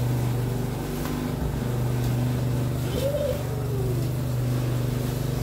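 A steady low mechanical hum, with a brief rising-and-falling vocal sound about three seconds in.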